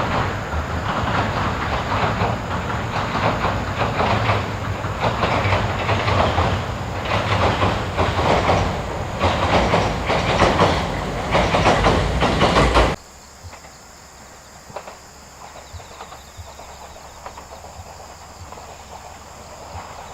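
JR Central 313 series electric train crossing a steel railway bridge: a loud rumble with wheels clattering rhythmically over the rail joints. About thirteen seconds in, the sound cuts off abruptly to a much quieter, steady background.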